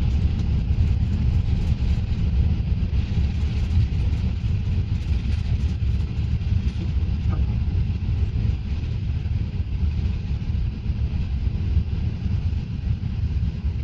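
Steady low rumble of jet airliner cabin noise during climb-out after takeoff, heard from inside the cabin of an Airbus A380: engine noise at climb thrust mixed with the rush of airflow.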